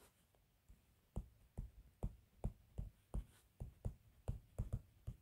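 Stylus tapping and ticking on a tablet screen while handwriting: a string of faint, light taps, unevenly spaced at about three a second, starting about a second in.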